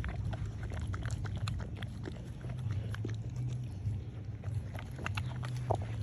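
A dog working a plastic brick puzzle toy: irregular light clicks and knocks of the plastic pieces being moved, over a low steady hum.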